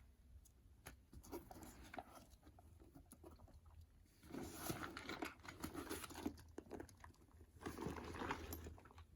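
Fjällräven Kånken sling bag being handled and turned over: faint rustling of the fabric with small clicks and taps, growing into louder rustling about four seconds in.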